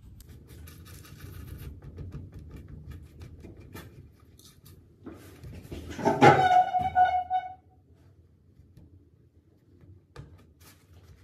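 A cloth rubbing and dabbing over the painted surface of a sculpture, wiping back fresh dark paint for an aged finish: a soft rustle with light ticks. About six seconds in comes a louder burst of rubbing with a brief squeak, then only a faint click near the end.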